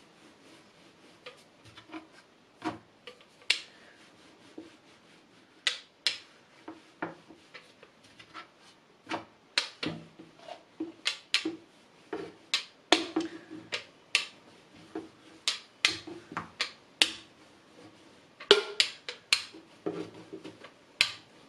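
Hand patting and pressing soft naan dough flat on a floured wooden chapati board: irregular soft slaps and sharp taps, bunched in quick runs.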